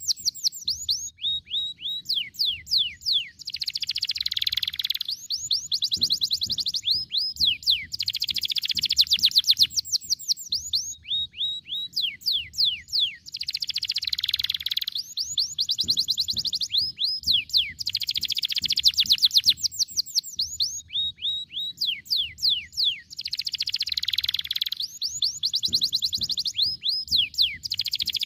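Domestic canary singing long rolls: very fast runs of quick, high, downward-swept notes and buzzy trills. The same song phrase comes round about every five seconds.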